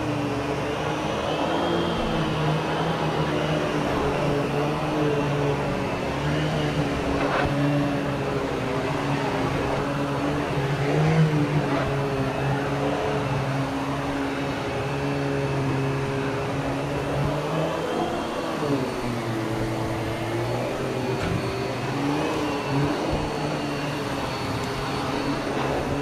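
Vacuum cleaner running steadily, its motor hum dipping and recovering in pitch a few times.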